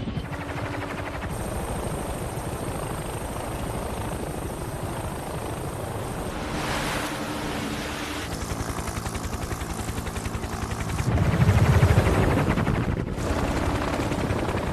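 Helicopter rotor chopping steadily over a rushing noise, growing louder for a couple of seconds near the end.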